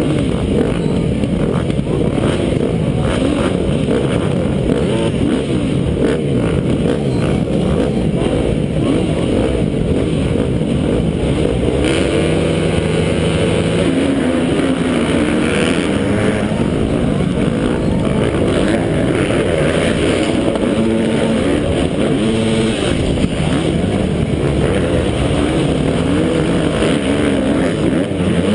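Motocross dirt bike engine racing, its pitch rising and falling with the throttle, most clearly around the middle. A loud, steady rumbling noise runs under it throughout.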